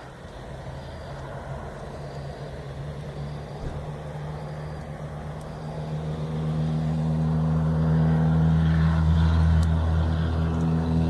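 Engine drone of a heavy road vehicle, likely a truck, approaching on the road. It grows steadily louder through the second half and is loudest near the end.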